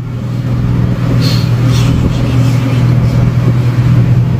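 A motor engine running at a steady pitch under a broad rushing noise.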